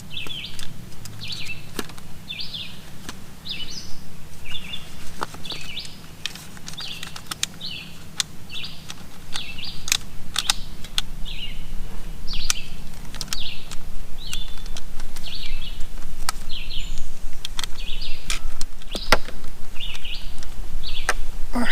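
A bird chirping over and over, about two short chirps a second, with scattered light clicks.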